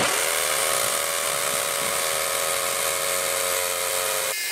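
Electric power tool motor spinning up and then running steadily. Near the end the sound changes abruptly to a thinner, higher tone.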